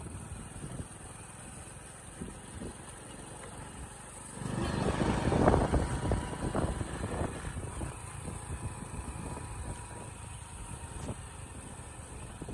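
Hero Splendor single-cylinder four-stroke motorcycle running at a steady cruise, heard from the rider's seat with wind rushing over the microphone. About four seconds in there is a louder rush of noise that lasts a couple of seconds.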